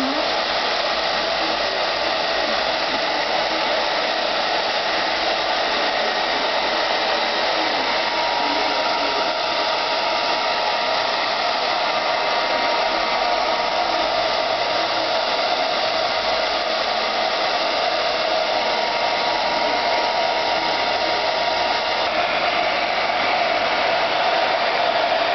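Handheld dryer blowing steadily on a Samoyed's thick wet coat: a constant rushing of air with a faint steady whine from its motor.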